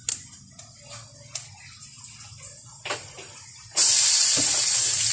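A few light clicks and knocks of utensils on the pan, then about four seconds in a sudden loud sizzle as chicken cubes go into hot oil with sautéed garlic and onion.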